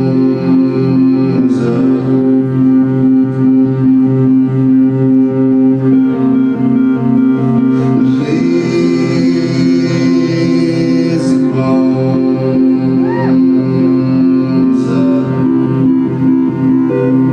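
Live band music from a trio with stand-up double bass and drums: a loud, steady instrumental passage of sustained tones, with a few sharp hits scattered through it.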